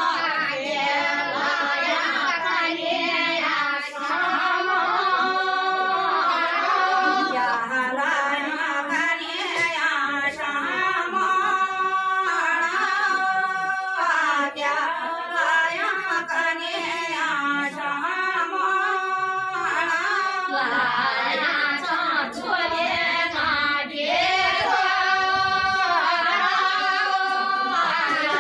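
A group of women singing together in unison: a mangal geet, a traditional Garhwali ritual song sung at the kanyadaan rite of a wedding. The singing runs on continuously, with only brief breaks for breath.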